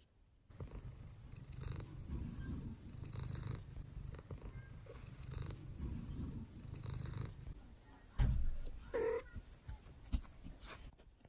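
Long-haired domestic cat purring while being stroked, the purr swelling and fading with each breath, about every second and a half. A little after eight seconds in comes a thump, then a short meow.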